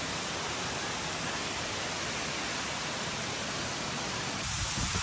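Steady rushing of Tumalog Falls' water, an even hiss with no change in level. Near the end, wind begins buffeting the microphone in low rumbling gusts.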